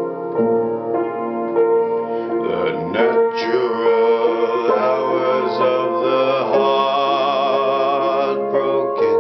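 Upright piano played in slow, sustained chords. About two and a half seconds in, a voice joins, singing long, wavering held notes, and stops shortly before the end.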